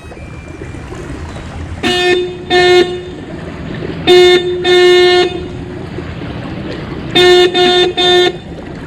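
A horn sounding seven short blasts in three groups, two, then two, then three quick ones, each a single steady note.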